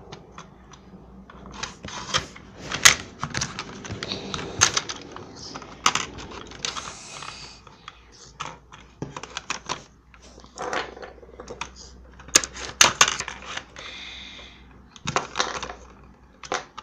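Irregular sharp clicks and taps of hard plastic objects handled on a tabletop, with a couple of brief scraping sounds, as play-doh is worked with its plastic tools and pots.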